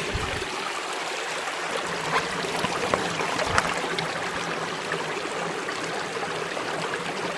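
Shallow rocky river flowing in a steady rush, with a few faint brief knocks about two and three and a half seconds in.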